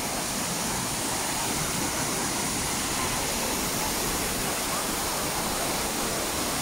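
Waterfall pouring into a pool: a steady, even rush of falling water with no break or change.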